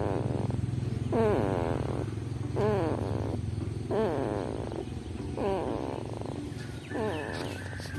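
A young child snoring in sleep: a low rattling buzz with a wavering, whistling snore repeating about every second and a half.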